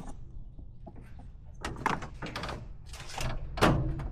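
Hands handling hoses and parts in an engine bay: a run of short scraping and rubbing noises, the loudest near the end.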